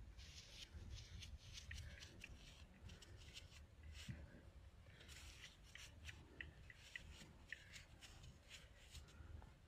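Near silence, with faint, irregular crackling and rustling over a low rumble.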